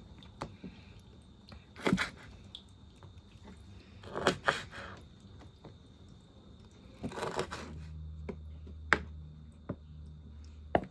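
Kitchen knife chopping the claws off raw chicken feet on a plastic cutting board: several separate crunchy chops a second or two apart. A low steady hum comes in about three quarters of the way through.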